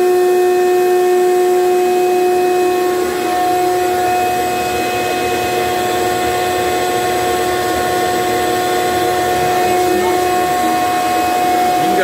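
Shop vacuum running with a steady whine, pulling on a dryer vent, while a corded Skil drill slowly spins LintEater rods through the duct to loosen the lint.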